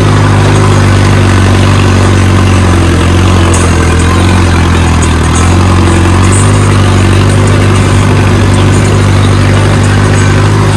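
Mahindra Arjun tractor's diesel engine running steadily while driving across a tilled field, heard close up from the driver's seat, with an even pitch and no change in speed.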